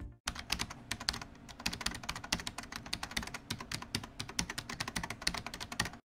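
Computer-keyboard typing sound effect: a fast, uneven run of light key clicks that starts about a quarter of a second in and keeps going.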